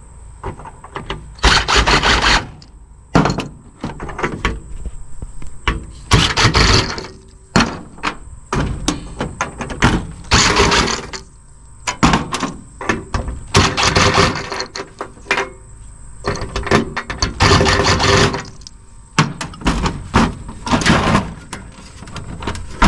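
Parts of a cassette deck being cut and pried apart by hand: a run of clicks, clatter and scraping, with a louder crunching or tearing burst every few seconds.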